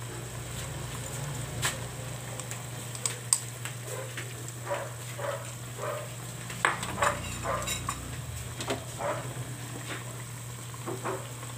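Chicken adobo simmering in its soy-and-vinegar sauce in a frying pan, sizzling and bubbling, with scattered sharp pops and clicks and a utensil stirring in the pan; a steady low hum runs underneath.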